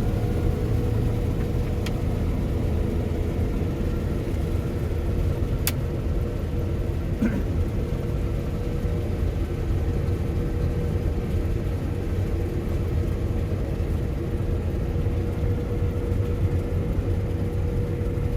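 Claas Lexion combine harvester running steadily under harvesting load: a constant low engine and machinery drone with a steady hum. There are a couple of faint clicks.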